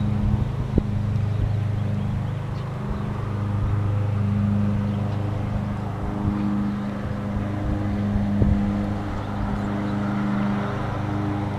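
A motor running steadily with a low, even drone, with a few dull knocks over it.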